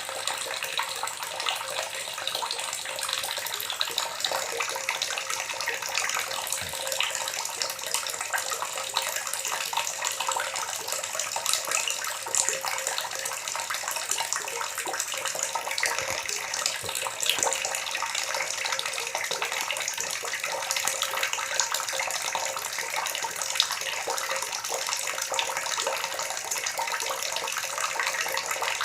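Water gurgling and splashing steadily, with many small bubbling pops and trickles.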